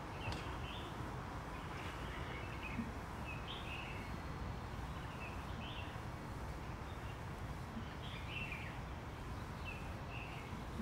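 Small birds chirping in short, scattered calls over a steady low background hum.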